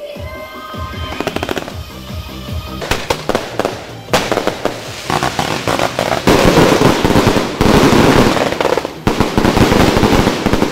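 Massed firecrackers and fireworks going off: a dense, rapid crackle of countless bangs. It thickens and grows louder about four seconds in and is loudest from about six seconds on.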